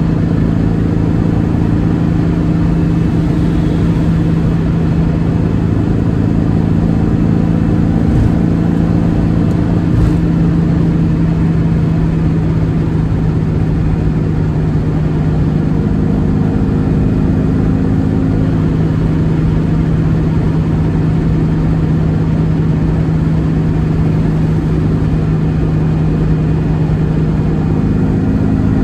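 1958 VW Beetle's air-cooled flat-four engine running steadily, with a short click about eight seconds in and another about two seconds later.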